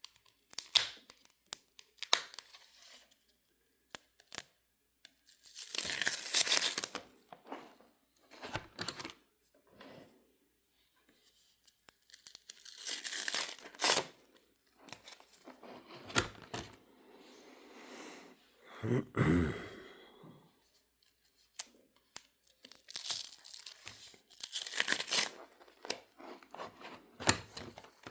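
Basketball trading cards being handled and sorted by hand: irregular bursts of rustling and crinkling, with sharp clicks between them and a heavier, deeper rustle about two-thirds of the way through.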